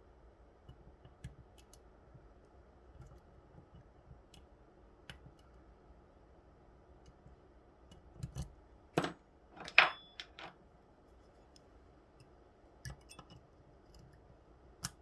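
Small metallic clicks and scrapes of a lock pick probing the pin stacks of an Assa Twin 6000 euro cylinder under tension, checking which pins are set. A louder run of sharp clicks comes about eight to ten and a half seconds in, with a few more near the end.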